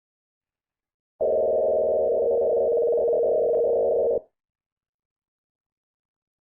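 Emergency alert tone: a loud, steady, buzzy electronic tone starting about a second in and held for about three seconds, then cut off into silence.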